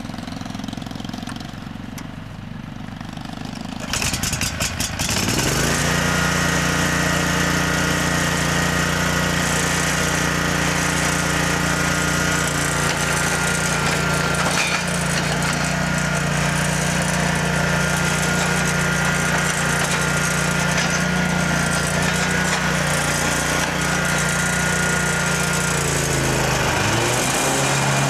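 The 2004 Exmark Turf Tracer's 17-horsepower Kawasaki engine is cranked about four seconds in, catches a second later and rises to a steady run. Near the end its pitch drops to a lower speed.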